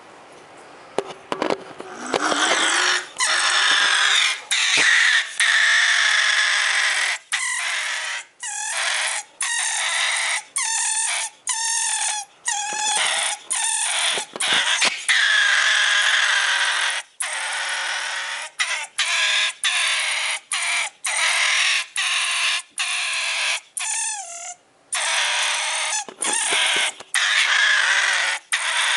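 Pine marten growling angrily: a loud, harsh, rasping outburst that starts about a second in and keeps going, broken by short gaps for breath about once a second.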